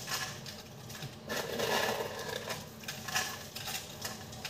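Crispy fried onions (birista) crumbled by hand and scattered over the mutton marinade in a steel pot: dry crackling and rustling in uneven bursts, the longest from about a second in.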